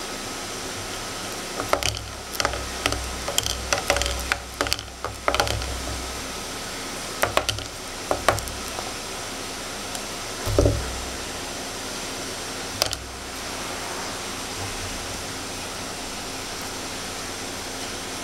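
Hands handling a frozen sea urchin and a spool of bait-binding thread while wrapping the thread around it: a run of small clicks and knocks in the first half, a low bump about ten seconds in and one sharp click shortly after, over a steady hiss.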